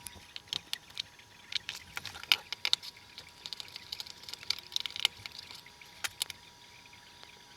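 Light, irregular metallic taps and clicks, many in quick succession, of steel tools working the cut-open bearing race off the wheel hub.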